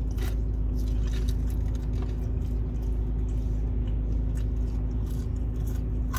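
Steady low hum of a car's idling engine heard inside the cabin, with a few soft clicks of chewing fries.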